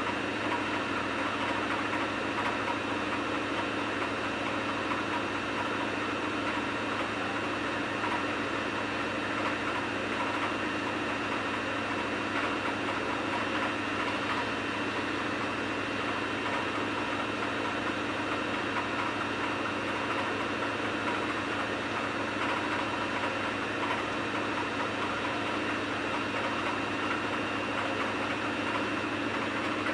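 Samsung washing machine running with a load of wet towels: a steady mechanical hum with a thin high tone held over it, unchanging throughout.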